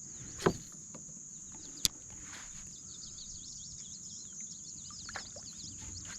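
Steady high drone of insects with many small bird chirps over it. A dull thump about half a second in and a sharp click just before two seconds stand out as the loudest sounds.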